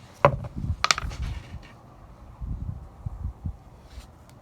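Handling noises as polyurethane bushings and parts are picked up and set down: two sharp clicks, one about a quarter second in and one about a second in, among soft low knocks and rubbing, then more soft knocks past the middle.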